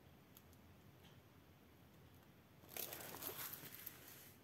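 Near silence, then from about three seconds in a crinkling rustle as the plastic-covered diamond painting canvas is handled.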